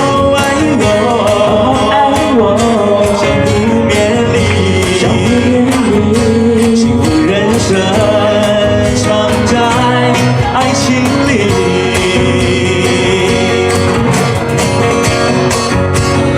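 Live band playing an instrumental passage of a Mandarin pop ballad: a gliding lead melody over guitar accompaniment.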